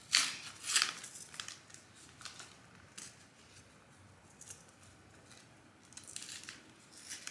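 Paper seed packet crinkling and being torn open by hand, in short scattered rustles, loudest in the first second and again near the end.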